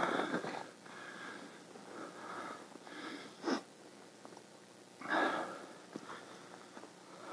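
A few short sniffs: one at the start, one about three and a half seconds in, and a longer one about five seconds in.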